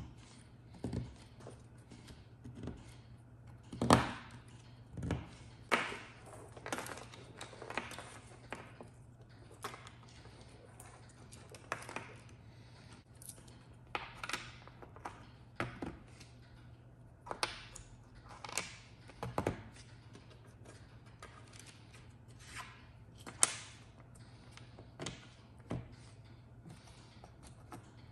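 Hands working wire and small plastic parts on a plywood pinball lamp panel: irregular clicks, taps and light knocks, with a louder knock about four seconds in. A low steady hum runs underneath.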